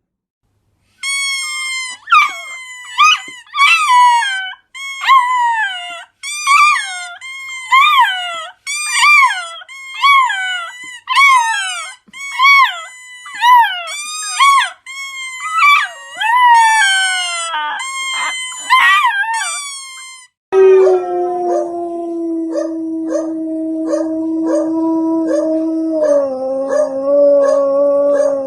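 Dogs howling: a run of short, high howls rising and falling about once a second, then, about 20 seconds in, one long, lower howl held steady that drops in pitch and climbs again near the end.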